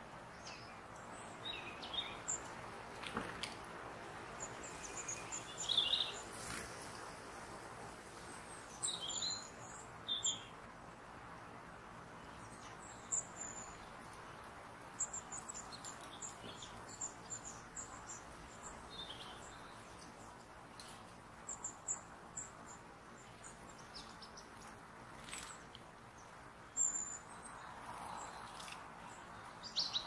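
Small woodland birds chirping and calling in short, high notes scattered throughout, over a steady faint hiss.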